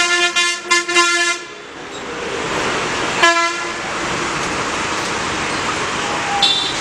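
Vehicle horn honking: a quick series of short blasts for about a second and a half, then one more short honk about three seconds in, over steady road traffic noise.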